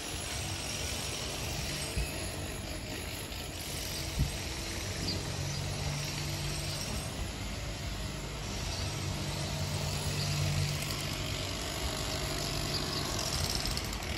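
Steady low engine hum, swelling and fading over several seconds, under general outdoor background noise, with a couple of faint knocks.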